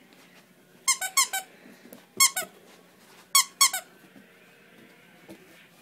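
Squeaky dog toy chewed by a cockapoo puppy, giving seven short squeaks in three quick clusters: three, then two, then two.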